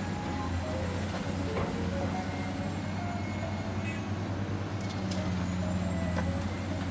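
A steady, low engine-like drone, like a heavy motor running at constant speed.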